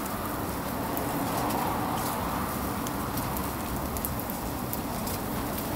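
Fish grilling over charcoal: a steady sizzling hiss with many small crackles and pops scattered through it.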